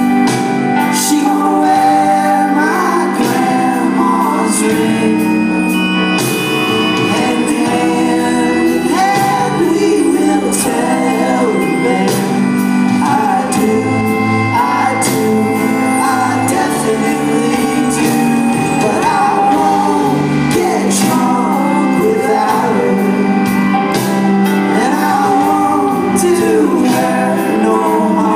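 Rock band playing live: electric guitars, bass guitar and drums, with a voice singing over them.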